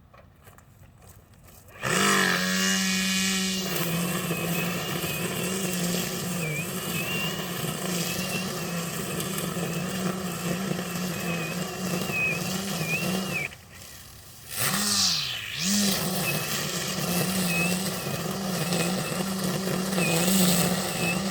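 15-inch string trimmer spinning up about two seconds in and cutting overgrown grass, its steady whine dipping and recovering as the line meets the grass. It stops briefly past the middle, then spins up again.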